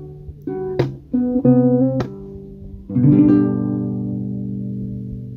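Acoustic guitar being played: a few plucked and strummed chords in quick succession, then a chord struck about three seconds in that rings on and slowly fades.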